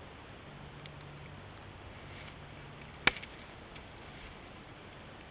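One sharp, loud click about three seconds in, with a couple of faint ticks around it, over a faint low steady hum.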